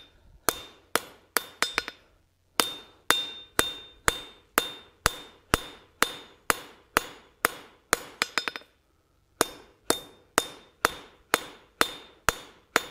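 Hand hammer striking a red-hot steel tong blank on an anvil, about two blows a second, knocking the corners off the bar; many blows carry a bright anvil ring. The blows pause briefly twice, with a quick run of light taps just before the second pause.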